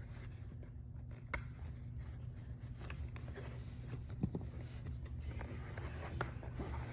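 Faint handling noise: scattered small clicks and knocks, the sharpest about four seconds in, over a steady low hum.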